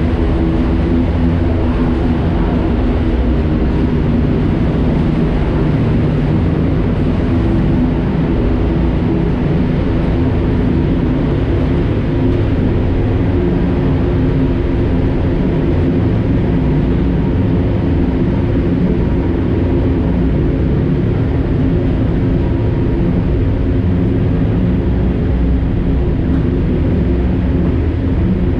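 Side-by-side UTV engine running steadily at a slow crawl, heard from a camera mounted on the vehicle, with an even hum that holds the same pitch throughout.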